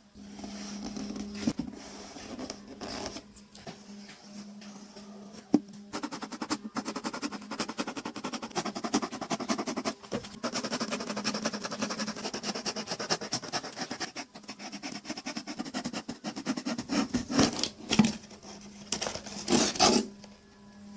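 Dense, rapid scratching and scraping, as of handwork on a material, over a steady low hum. There is one sharp click about five seconds in and a few louder knocks near the end.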